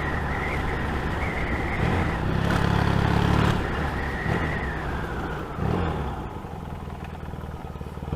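Motorcycle engine running while being ridden, heard from the rider's helmet: the engine note builds and grows louder around two to three seconds in, then the revs drop off about five and a half seconds in and it runs quieter to the end.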